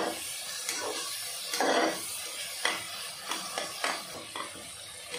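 A metal slotted spoon scrapes and knocks against an aluminium pressure cooker several times as onions, tomatoes and green chillies are stirred in hot oil. The oil sizzles steadily underneath.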